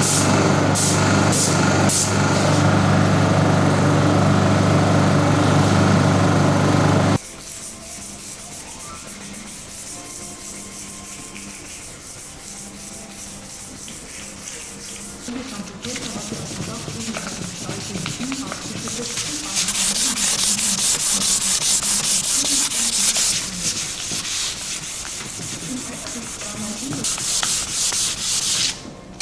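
Paint-spraying equipment running with a steady hum and hiss as lacquer is sprayed onto the wooden hull, cutting off suddenly about seven seconds in. Then hand sanding of wooden boards: rhythmic rubbing strokes of abrasive on wood, strongest in stretches around the middle and near the end.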